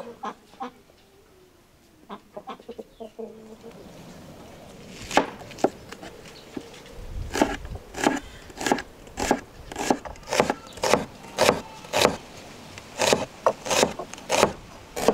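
Steady chopping with a knife on a wooden board, sharp strokes about two a second starting about five seconds in, after a few faint clicks.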